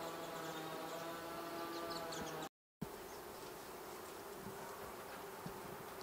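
A steady mechanical drone with an even stack of pitches, like a distant motor. It cuts out abruptly about two and a half seconds in, then comes back rougher and fainter.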